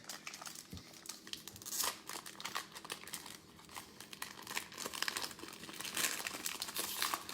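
Foil wrapper of a Prizm football card pack being torn open and crinkled in the hands, an irregular crackling that comes in several louder spells.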